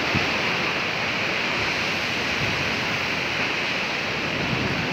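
Ocean surf washing and breaking against a rocky shore, a steady rushing, with wind rumbling on the microphone.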